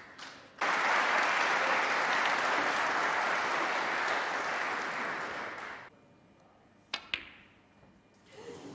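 Snooker arena audience applauding for about five seconds, the clapping starting and stopping sharply, followed a second later by two sharp clicks in quick succession.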